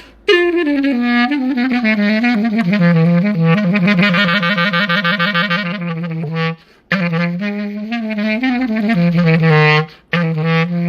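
Selmer Privilege B♭ clarinet played solo: melodic phrases in its low and middle register with fast ornamented runs, broken by two short breaths.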